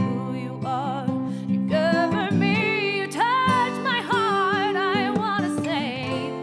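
Music: acoustic guitar accompaniment under a wavering, vibrato melody line.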